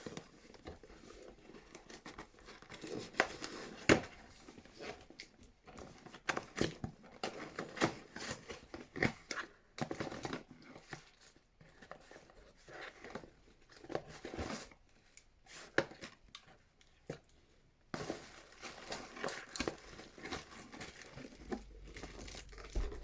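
Packaging being torn open and crinkled by hand: irregular rustling and tearing with sharp crackles, easing off briefly about two-thirds of the way through.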